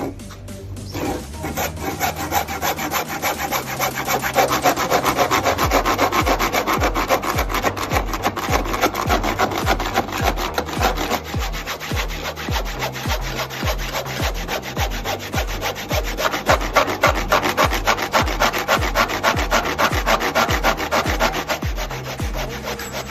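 Hand saw cutting through wood in back-and-forth strokes. It starts lightly, then settles into a steady rhythm of about two to three strokes a second from about five seconds in.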